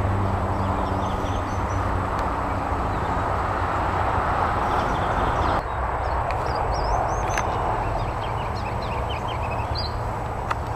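Small birds chirping in short repeated phrases over a steady rushing background noise; the background drops a little and changes character at an abrupt cut a little past halfway.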